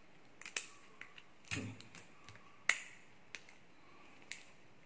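Irregular sharp clicks and a brief rustle as nylon trimmer line is wound by hand onto a bush cutter's spool, with one louder click a little past the middle.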